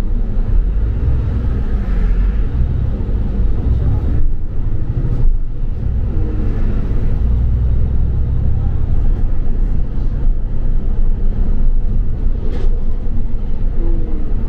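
London double-decker bus in motion heard from inside the passenger cabin: a steady low rumble of engine and road noise.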